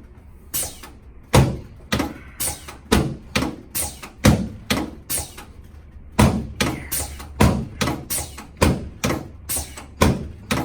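A rapid series of sharp knocks, about two a second and around twenty in all with a short pause about halfway, from a chiropractor's adjusting work on a patient lying on his back on a treatment table.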